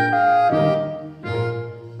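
Background music: a slow melody of long held notes, softening for a moment midway.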